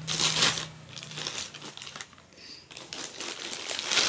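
Plastic and non-woven shopping bags crinkling and rustling as clothes are pulled out of them. It is loudest in the first half-second and again near the end, with softer rustling between.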